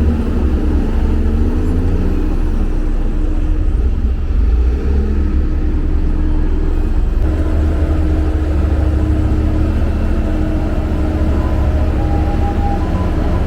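Diesel engine of heavy road-building machinery running steadily under load, a loud continuous low rumble.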